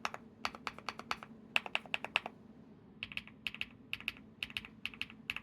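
Typing on an Epomaker x Feker Galaxy80 mechanical keyboard with lubed HMX Hyacinth v1 linear switches and dye-sub PBT keycaps: quick runs of crisp, clacky keystrokes with short pauses between them, the marble or mahjong-tile sound the switches are known for.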